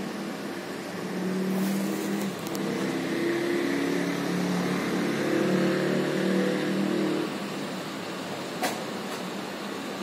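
A road vehicle's engine drones past for about six seconds, rising and then fading, over a steady hum of traffic. A single sharp click comes near the end.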